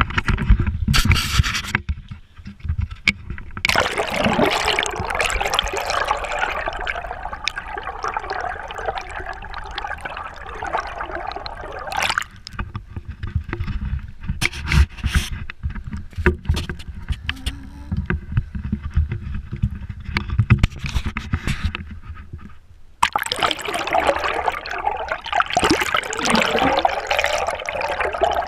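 Seawater rushing and gurgling over a GoPro camera housing as it is dipped into the sea beside the boat, with knocks and scrapes of the camera being handled in between.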